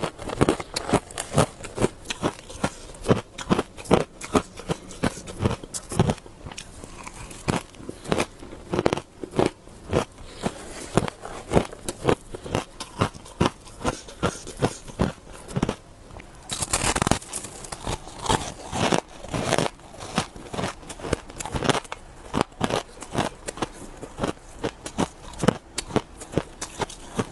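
Close-up crunching of a person biting and chewing powdery shaved ice, a few sharp crunches a second, with a denser, louder run of crunching about two-thirds of the way through.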